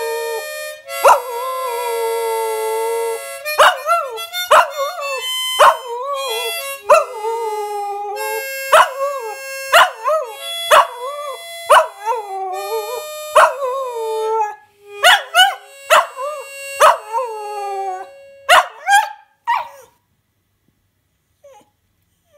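An 8-month-old Smooth Fox Terrier puppy howling along with a harmonica: the harmonica plays held notes while the puppy's howls waver up and down around them. Both stop about twenty seconds in.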